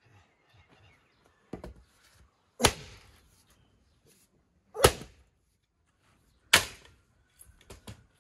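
Axe splitting firewood on a wooden chopping block: three sharp, loud blows about two seconds apart, with a few lighter knocks of wood between and after them.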